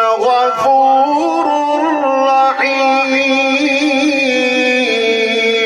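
A man's voice in melodic Qur'an recitation (tajweed), drawing one vowel out into a long ornamented note that steps up and wavers in pitch, then holds steady and ends near the end.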